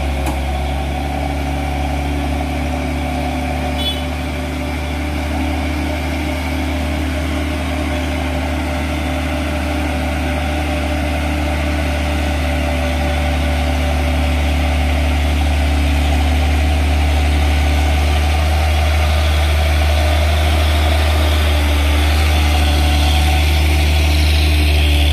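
Hino 500 dump truck's diesel engine labouring at low, steady revs as the truck struggles up a steep climb. It grows slowly louder as the truck draws close and passes.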